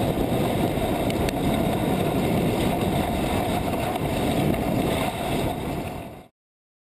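Steady rushing wind noise buffeting the microphone on a moving dog sled, with a single faint click about a second in. The sound cuts off abruptly near the end.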